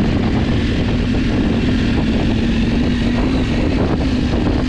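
Motorcycle engine running steadily at a slightly wavering pitch while the bike is ridden along a rough forest trail.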